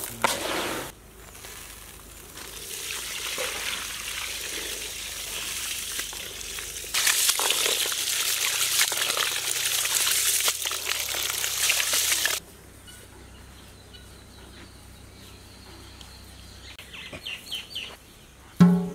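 Water poured over rice in a plastic tub, gushing and sloshing as the rice is washed; it is loudest for about five seconds in the middle and then stops suddenly. Near the end, a knock as a large aluminium pot is set down on the stones of the fire.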